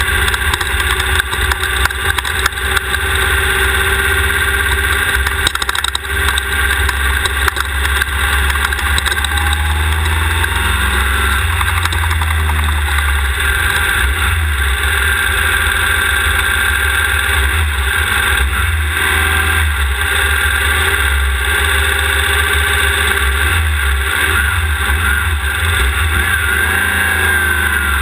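Off-road desert race car's engine running hard, its pitch rising and falling with the throttle. Over the first several seconds it is joined by many sharp knocks and rattles from the chassis on rough ground.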